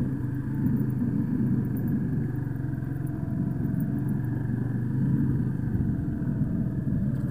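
A 125cc motorcycle engine running steadily at low revs while the bike is ridden slowly.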